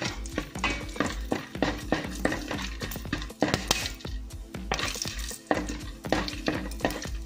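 Wooden spatula scraping and knocking against a metal pan while whole spices are stirred in a little oil, many short irregular clicks and scrapes, over background music.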